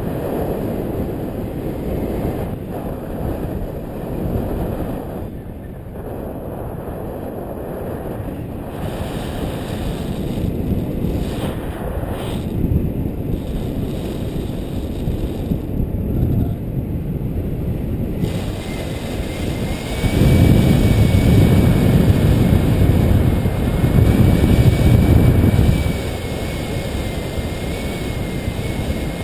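Airflow of a paraglider in flight rushing over the camera microphone as steady wind noise, swelling louder for several seconds about two-thirds of the way through.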